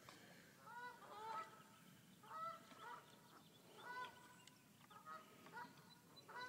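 Faint honking of geese, short calls repeating every second or so.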